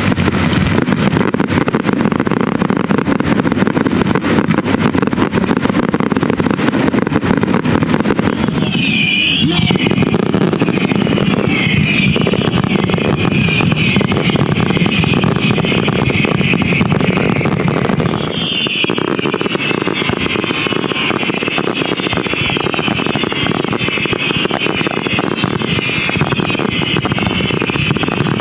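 Fireworks display: a dense, continuous stream of crackles and bangs over a steady rumble, with a wavering high-pitched sound joining from about nine seconds in.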